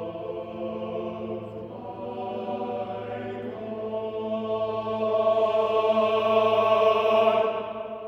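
Men's choir singing a two-voice motet, a low note held steady beneath a moving upper line. The closing chord swells to its loudest and is then released near the end, leaving the hall's echo to fade.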